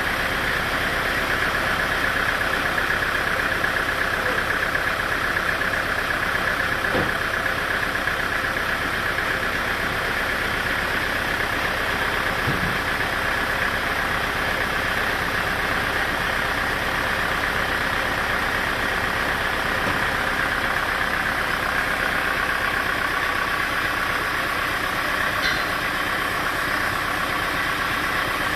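Sawmill machinery running steadily, an even engine-like drone that does not change, with a couple of faint knocks early on.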